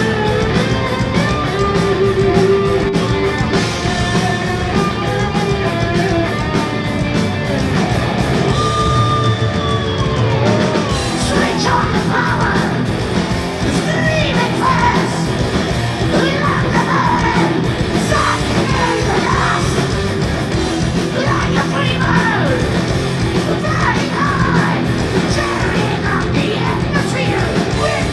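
Heavy metal band playing live: distorted electric guitars, bass and drums, with a male lead vocal shouted over them, most prominent from about a third of the way in.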